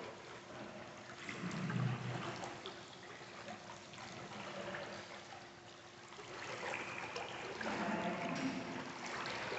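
Pool water sloshing and lapping as a person twists through crisscross crunches holding a foam pool noodle, swelling louder around two seconds in and again near the end. A faint steady hum runs underneath.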